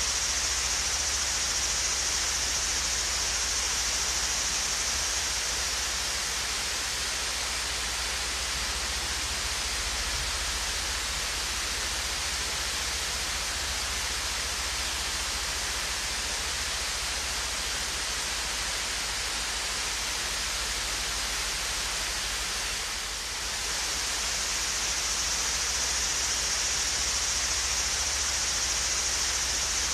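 Swayze Falls, a small waterfall, with water pouring and splashing in a steady, even hiss that dips slightly for a moment about three quarters of the way through.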